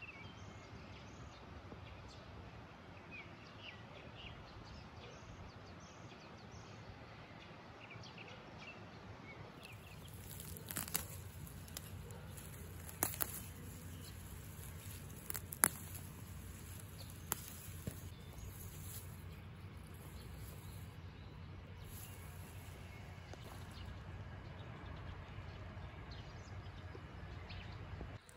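Quiet outdoor ambience with small birds chirping over the first several seconds. From about ten seconds in, a higher hiss joins the background and a few sharp clicks or snaps sound, the loudest about halfway through.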